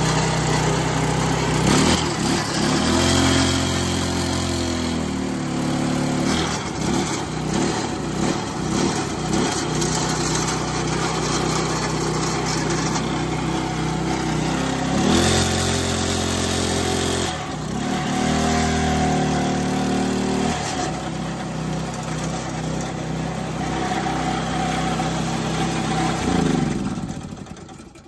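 Small Harbor Freight gas engine running under heavy load, belted to a V8 Cummins diesel to turn it over. Its note changes several times as the belt is worked against the diesel, and it dies away about a second before the end. The attempt does not start the diesel.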